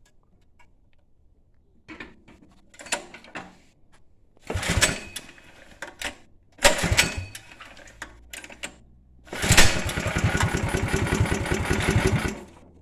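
Predator 212 single-cylinder engine on a 1962 Wheel Horse 502 being cranked in several tries that will not catch: a few short clatters, two bursts of about a second each, then a steady pulsing run of about three seconds that stops abruptly near the end.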